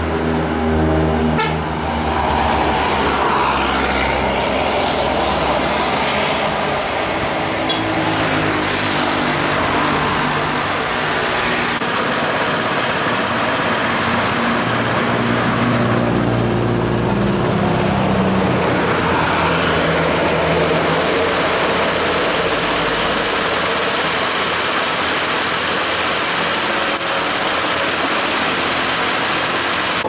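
Tour buses and cars driving past on the road: steady engine and tyre noise, with a heavy bus engine's low drone strongest near the start and again about halfway through.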